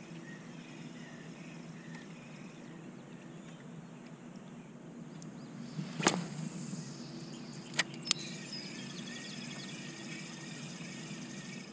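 An overhead cast with a spinning rod and reel. A sharp swish about six seconds in as the line goes out, then two quick clicks from the reel a couple of seconds later. Under it is a steady low background with faint chirping.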